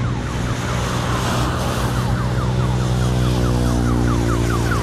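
Motorcycle engine running steadily, overlaid by an electronic siren sounding a rapid falling chirp about four times a second.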